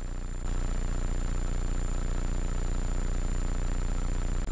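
Hummingbird helicopter in flight, heard from inside the cabin: a steady low drone of engine and rotor with a thin high whine over it, stepping up in loudness about half a second in and then holding even.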